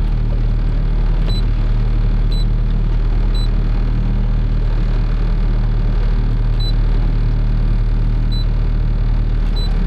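Boat motor running with a steady low hum, with six short high beeps from a Lowrance HDS7 sonar/chartplotter as its controls are pressed: three about a second apart early on, then three more later.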